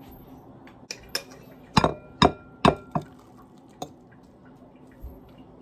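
Kitchen utensils clinking and knocking against cookware while instant noodle soup is being made: about seven sharp clinks, the loudest in the middle, a few of them ringing briefly.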